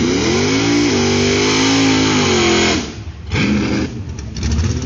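Car engine revving up and held at high revs for about two seconds, then backing off sharply, followed by a short second rev before it drops to a lower, steady note.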